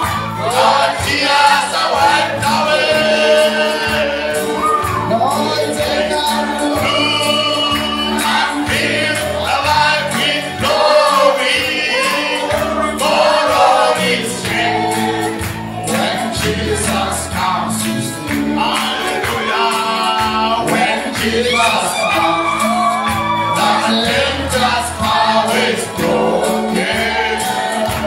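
Gospel worship song: voices singing together over steady instrumental backing, with a low line that moves from note to note.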